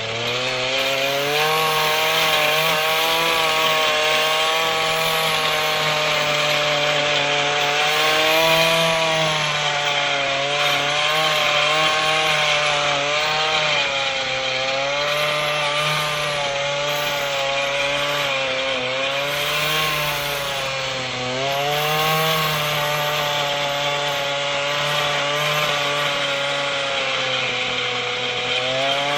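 Earthquake MC33 mini tiller's 33cc two-stroke engine running under load while tilling soil, its pitch rising and falling as the tines bite in, with a marked dip about two-thirds of the way through.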